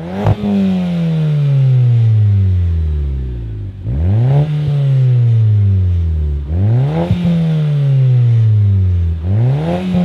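Audi A4 with an aftermarket cat-back exhaust, revved four times: each time the exhaust note climbs sharply and then slowly sinks back toward idle.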